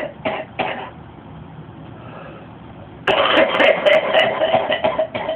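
Older man's smoker's coughing fit: a run of short coughs, a lull of about two seconds, then a sudden loud spasm about three seconds in that breaks into more short coughs. He puts his cough down to 55 years of smoking.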